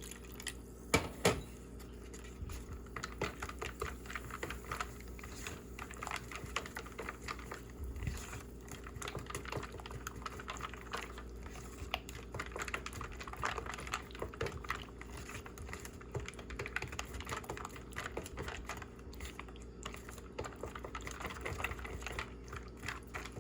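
Cake batter being stirred in a bowl, the utensil making rapid, irregular clicks and taps against the bowl, with two sharper knocks about a second in.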